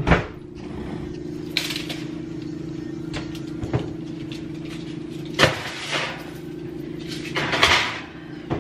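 Clanks, knocks and a short scrape of metal baking sheets and the oven door as trays of cookie dough go into the oven, over a steady low hum.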